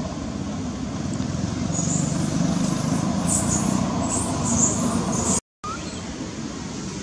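Steady low outdoor background rumble with some faint high hiss, cutting out to silence for a moment about five and a half seconds in.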